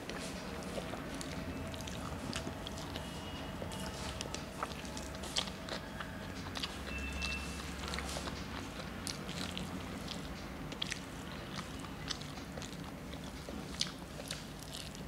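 A person eating rice and curry with her fingers: chewing and lip and mouth clicks, with many small sharp clicks from fingers mixing rice on a steel plate.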